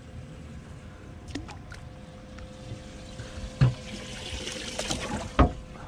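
Water splashing and trickling aboard a small fishing boat, with two hard knocks, about halfway and near the end, over a steady hum.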